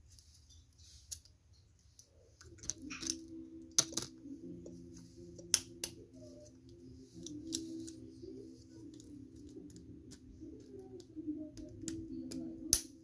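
Sharp plastic clicks and snaps of Klikbot toy figure parts being handled and pressed together, scattered irregularly, the loudest near the end. A low steady hum starts about two and a half seconds in.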